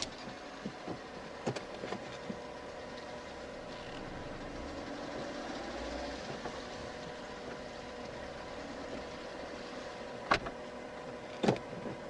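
A Fiat Panda running and moving slowly, with its engine humming steadily and a few light clicks early on. Two sharp knocks come near the end: this is the knock from around the rear hub that is still there after the wheel bolt was loosened and retightened.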